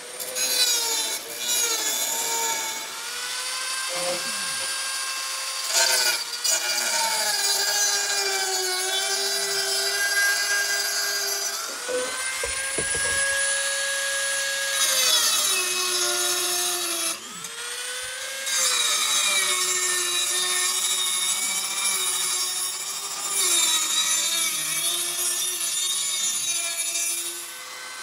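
Rotary tool (Craftsman, Dremel-type) with an abrasive cutoff wheel cutting through rusty sheet steel. It makes a high motor whine that sags in pitch as the wheel bites into the metal and climbs back as it frees, with a couple of short breaks.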